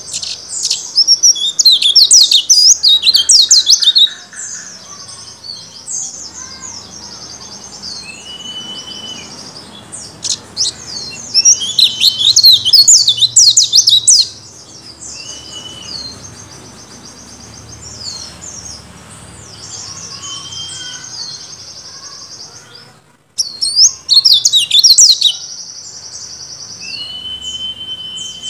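Caged white-eye (pleci) singing: three loud bouts of fast, high twittering warble, about a second in, around twelve seconds in and near twenty-four seconds, with a thin high trill and short single call notes between them.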